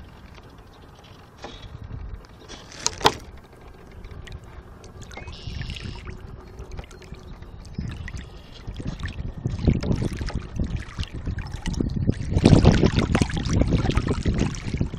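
Water splashing and slapping against the small hull of a radio-controlled sailboat as it sails through choppy water, picked up by a phone on its deck. The splashing grows louder in the second half, and there is a single sharp click about three seconds in.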